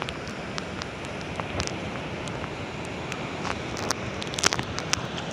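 Sea surf breaking on a rocky shore, a steady wash of noise with wind buffeting the microphone, and scattered short clicks.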